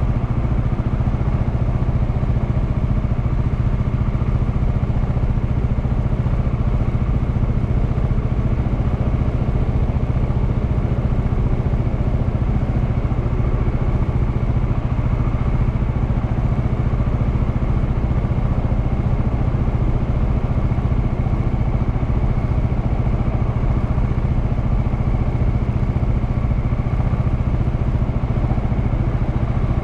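Honda Clubman motorcycle engine running at a steady, unchanging pitch.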